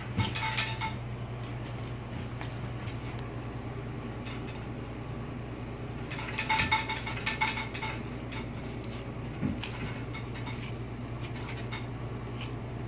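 Butcher knife clicking and clinking against bone as it cuts pork neck bones off a hog carcass, in two short flurries, near the start and again about six to eight seconds in, over a steady low hum.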